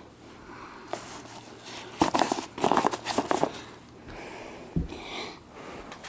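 Handling noise: a flurry of light clicks and rustling starting about two seconds in and lasting over a second, then a single soft low thump near five seconds.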